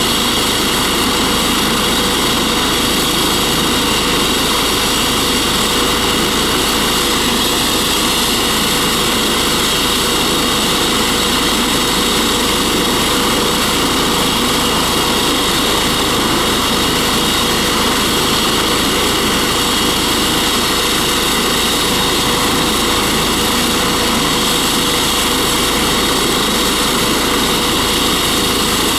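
Eurocopter EC135 T2+ helicopter running on the ground with its main rotor turning, its twin Turbomeca Arrius turboshaft engines and rotors making a steady, unchanging sound with a constant high tone.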